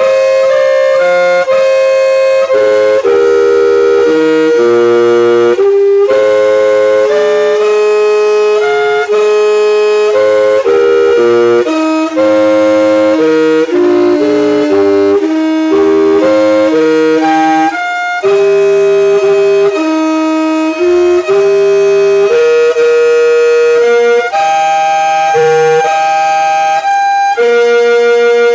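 Yamaha music siren playing its noon time-signal melody: loud, reedy held notes in chords, stepping from note to note.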